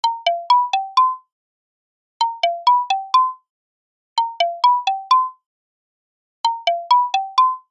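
A short five-note chime jingle, played four times with about a second of silence between repeats; each note is a single struck tone that dies away quickly, the phrase stepping down and up in pitch.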